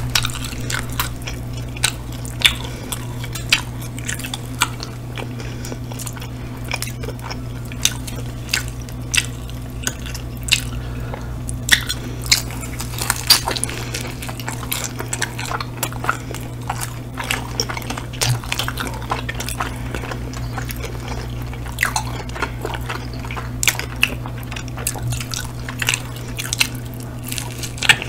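Close-miked chewing and biting of pepperoni pizza and chicken wings by two people, with many irregular wet mouth clicks and smacks, over a steady low hum.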